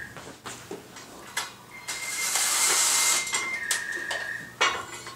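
Cordless drill driver running in short bursts as it drives the leg screws into a metal support pole, with metal parts clinking and knocking in between.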